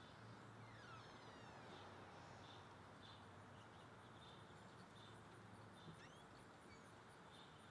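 Faint outdoor ambience, near silence: scattered bird chirps and a regular high insect chirp about three times a second, over a low steady hum. There is one small click about six seconds in.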